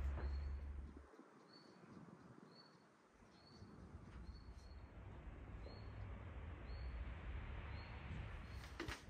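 Quiet outdoor garden ambience with a small bird repeating a short, high chirp a little faster than once a second. A low rumble is heard at first and cuts off about a second in.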